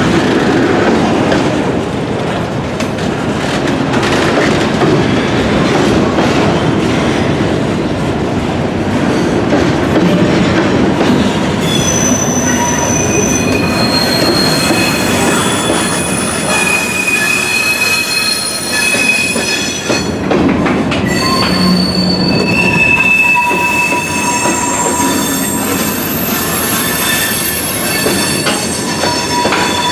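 Freight train of covered hopper cars rolling past on a curve, with a steady rumble and clatter of steel wheels on the rails. From about twelve seconds in, the wheels squeal in several high, steady tones that come and go.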